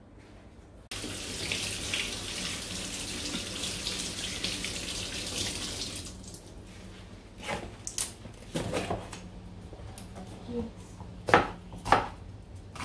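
Kitchen tap running as a green bell pepper is rinsed under it, shutting off about six seconds in. Then come several sharp knocks and clacks, the last ones from a knife cutting the pepper on a plastic chopping board.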